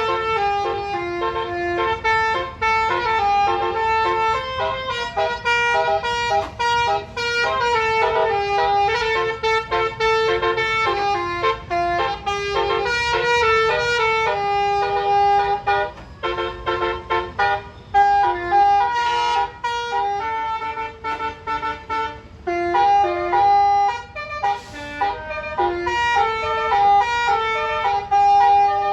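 Bus basuri telolet horn, a roof-mounted set of trumpet air horns, playing a fast melody of stepped notes, with a few short breaks partway through.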